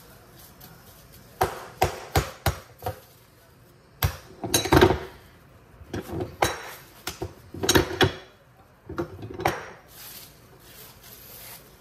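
Hands patting a ball of corn masa flat into a tortilla: bursts of sharp slaps, several in quick succession, repeated every second or two.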